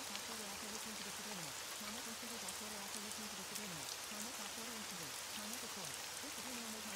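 Steady recorded rain, an even hiss with scattered drop ticks. Under it runs a faint, low voice speaking affirmations that cannot be made out.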